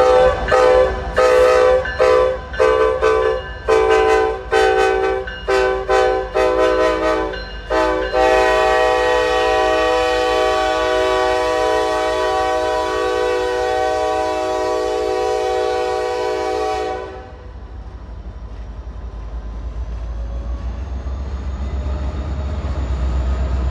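Norfolk Southern locomotive's air horn played as a horn show: about a dozen short, quick toots in the first eight seconds, then one long blast of about nine seconds that cuts off. After it, the low rumble of the passing freight train, growing louder near the end.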